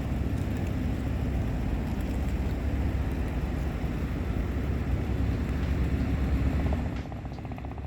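Steady engine rumble, with a drop in level about seven seconds in.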